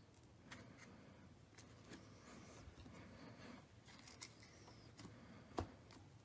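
Faint rustling and clicking of trading cards in clear plastic sleeves being shuffled and flipped through by hand, with a handful of short taps and a sharper one about five and a half seconds in.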